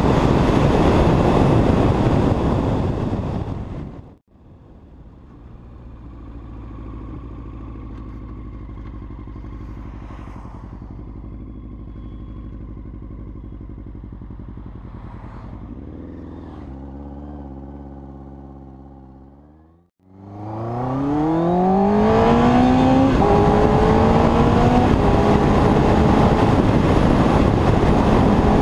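Yamaha R1's inline-four engine heard from the rider's helmet. Engine and wind noise at speed fade out. The engine then idles steadily for a while, its revs rising slightly. Near the end it pulls away hard, the pitch climbing steeply and shifting up into a gear, with wind rush at speed.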